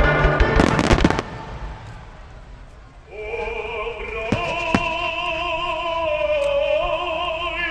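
A barrage of firework shells bursting in rapid succession over loud music, stopping about a second in. After a short lull, a slow melody with strong vibrato, operatic in style, comes in from the show's loudspeakers, with two single firework bangs partway through.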